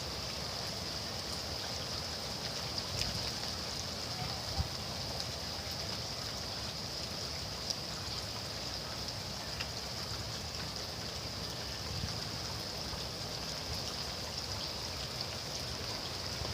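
Rain falling steadily, an even hiss of drops with a few scattered louder drips.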